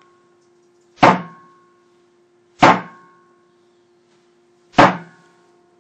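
Three sharp impacts on a 500 kg load cell for an impact-force test, roughly a second and a half to two seconds apart, each followed by a short metallic ring that dies away.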